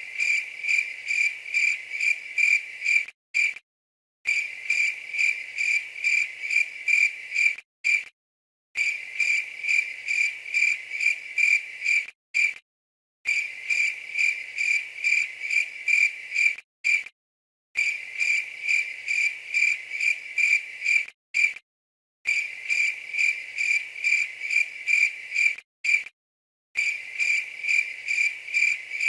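Field cricket chirping: a high-pitched chirp repeated about three times a second, in runs of about three seconds broken by short, completely silent gaps.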